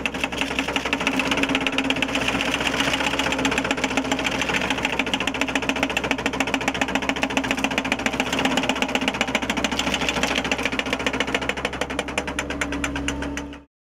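MenSe RP8L hydraulic reciprocating-blade cutter running with a rapid, even clatter as its toothed blade cuts through brush, over the excavator's steady hum. It cuts off suddenly near the end.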